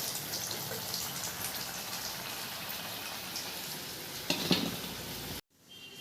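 Hot oil sizzling steadily in a pan where potol (pointed gourd) slices have been frying, with a couple of short utensil knocks about four seconds in. The sizzle cuts off abruptly near the end.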